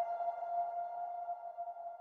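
Background music ending on a single held note that slowly fades out.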